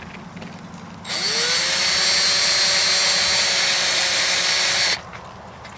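Cordless drill driving a screw into a Minn Kota trolling motor's head housing. The motor spins up with a short rising whine about a second in, runs steadily for about four seconds, then stops abruptly.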